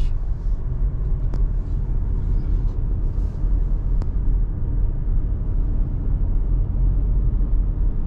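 Road noise inside a moving car: a steady low rumble of tyres and engine at road speed.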